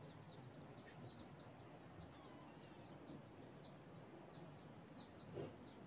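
Faint bird chirping: a steady run of short, high, falling chirps, about two or three a second, over quiet room noise.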